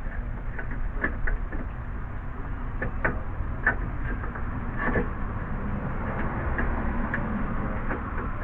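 Scattered light clicks and taps from tools and parts being worked, as a positioning tab is coaxed toward its hole, over a steady low rumble.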